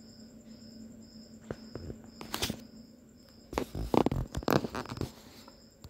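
Sound effects of an animated like-and-subscribe end screen: a faint high tick repeating about twice a second and a few light clicks, then a cluster of louder clicks and pops about three and a half to five seconds in, as the cursor clicks the subscribe button.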